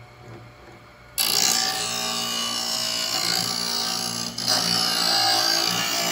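WoodlandPRO bar rail grinder's motor running with a quiet hum, then about a second in its abrasive wheel bites into the steel rail of a chainsaw guide bar and grinds steadily, with a short break a little after the middle. This is a light dressing pass to take the ridges off the bar rail and square it.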